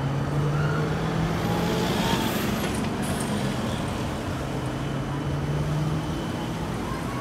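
Road traffic passing close by: two vehicles go by in turn, each with a steady engine hum that swells and fades, over general street noise.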